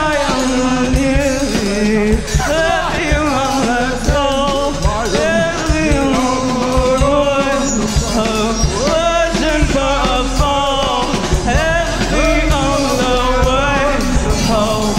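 Live band music: a voice singing long, gliding notes without clear words over drums and electronics.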